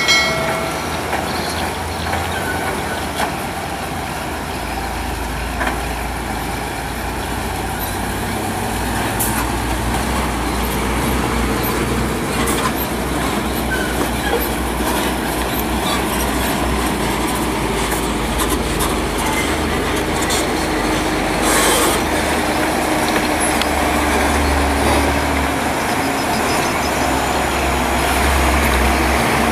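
Heavy logging trucks loaded with logs rolling past on a rough dirt road, their diesel engines running low and steady, with occasional clanks and rattles from the chassis and load. In the second half one engine note slowly falls in pitch.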